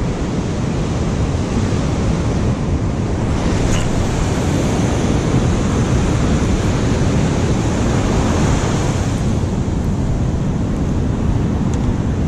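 Ocean surf breaking and washing up a sandy beach, with wind buffeting the microphone in a steady low rumble. The hiss of the wash swells up about four seconds in and again around eight to nine seconds.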